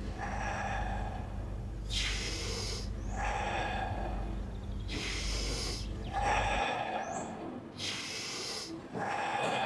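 A person doing deep, forceful breathwork: a strong breath in and a relaxed breath out, repeated in rough pairs about every three to four seconds, in the 'fire breath' pattern of a forceful inhale and a relaxed exhale.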